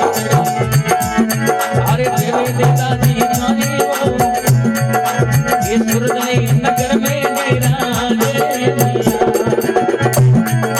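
Instrumental break in a Rajasthani folk bhajan: fast, steady hand-drum percussion with a shaker-like rattle under a sustained melody line.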